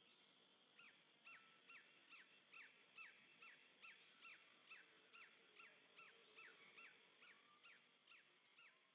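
An animal calling faintly: a long series of short, falling notes, about two or three a second, fading toward the end.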